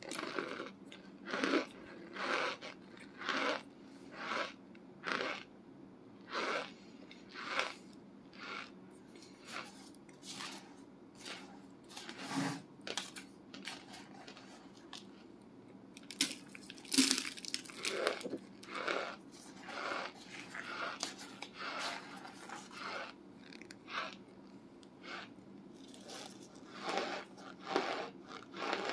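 Chunks of compressed cornstarch being bitten and chewed: a steady run of dry crunches, about one or two a second, the loudest about 17 seconds in.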